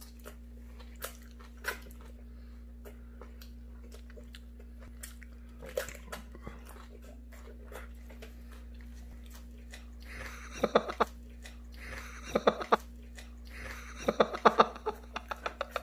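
A person chewing a big mouthful of lettuce-wrapped meat close to the microphone: wet chewing with crisp crunches, coming in clusters from about ten seconds in. A faint steady low hum lies underneath.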